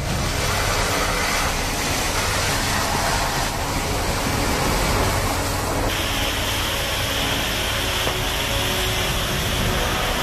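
High-pressure water jet blasting mud off a Cat 992K wheel loader, a steady rushing hiss over a low machine hum. About six seconds in the hiss turns brighter, with muddy water pouring off the raised bucket.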